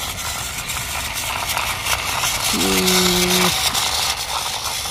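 Battery-powered Plarail toy trains running on plastic track: a steady whir of their small gear motors, with light clicking of wheels on the track. A little under three seconds in, a low steady tone sounds for about a second.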